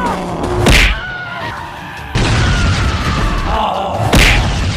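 Cartoon fight sound effects: two heavy impact hits, one under a second in and one near the end, with a dense rushing noise that starts suddenly about two seconds in and runs up to the second hit. Short musical tones sound at the very start.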